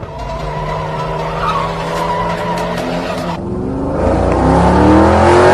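Car engine running steadily under a high hiss, then revving up, its pitch rising and getting louder over the last two seconds.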